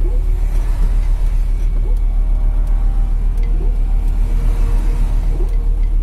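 Steady low engine and road drone inside a moving car's cabin.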